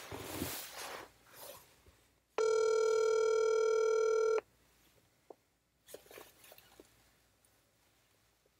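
Telephone ringback tone on an outgoing call: one steady two-second ring, then a few faint clicks on the line.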